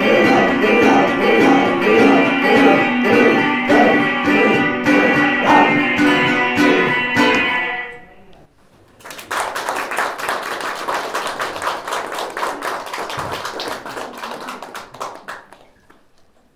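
Folk song accompaniment with a plucked balalaika and a regular beat, stopping about eight seconds in. After a short pause, an audience applauds for about six seconds, and the applause fades out.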